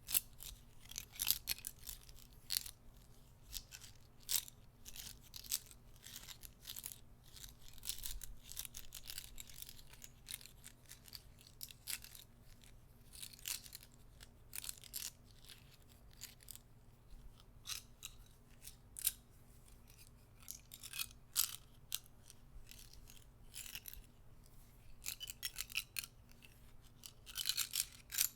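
Guitar picks clicking and tapping against each other: soft, irregular clicks with short rattling flurries, the busiest one near the end.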